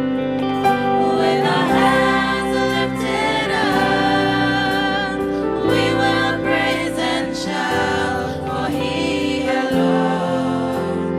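Youth choir singing a gospel song with instrumental backing, held chords over a moving bass line.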